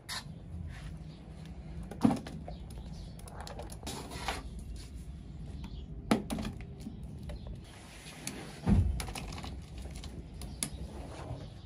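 Dry powder pouring from a sack into a plastic tub, a soft hiss broken by a few scattered knocks and bumps, the strongest about two, six and nine seconds in.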